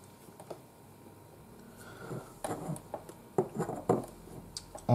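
Quiet room tone, then a few faint clicks and light knocks from about halfway through: small handling sounds of a painted figure bust and a fine paintbrush.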